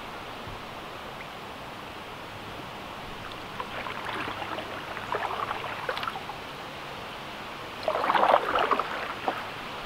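Kayak paddle dipping and splashing in river water: a few strokes in the middle and a louder splash near the end, over a steady background hiss.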